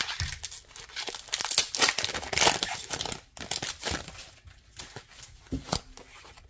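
Foil booster-pack wrapper crinkling as it is torn open, a dense crackle for the first three seconds. After that come lighter, scattered rustles as the cards are slid out and handled.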